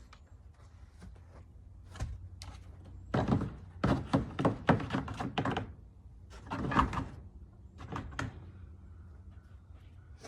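A run of knocks and clattering thuds, densest about three to six seconds in, with another heavy thud near seven seconds and a couple of sharp clicks after it.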